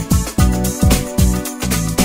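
Background music with a steady beat, about two deep beats a second under held tones.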